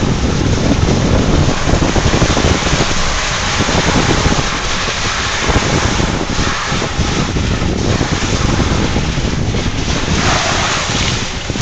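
Honda ATV riding through floodwater: a dense rush of water churning and wind buffeting the microphone over the engine, with a louder rush about ten seconds in.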